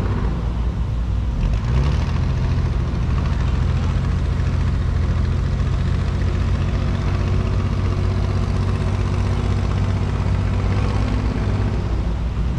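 A river boat's engine running underway, a steady low drone that rises slightly in pitch about a second and a half in.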